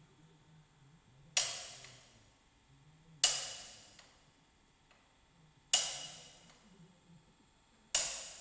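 Four sharp metallic strikes about two seconds apart, each ringing briefly, as steel parts at the grips of a universal testing machine are knocked, most likely with a hammer, to seat the bolt specimen for a tensile test.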